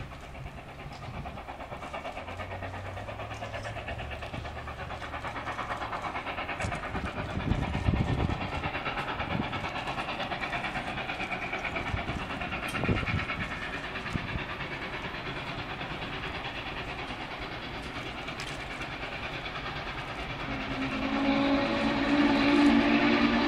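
Steam whistle of Norfolk & Western locomotive 611, blown loud and sustained from about two and a half seconds before the end as the train approaches. Before that, only the faint steady noise of the train still out of sight.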